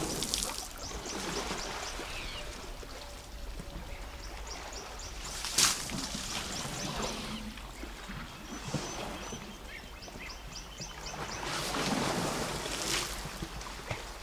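African savanna elephants sloshing and splashing in a muddy river, with a short sharp burst about five and a half seconds in and heavier splashing near the end. A bird calls in rapid runs of short high notes in the background.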